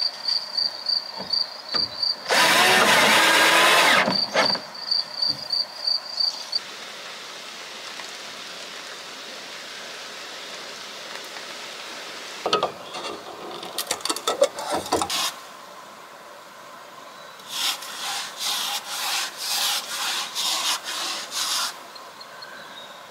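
Woodworking with tools: a loud burst of just under two seconds near the start, scattered knocks and clicks in the middle, and a run of about eight even rubbing strokes, two a second, near the end, like sawing or rasping wood. A high, even ticking of about three a second runs under the first few seconds.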